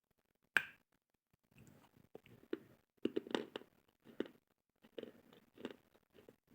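A person bites into a piece of white slate with one sharp crack, then chews it in a run of irregular, crunchy grinds.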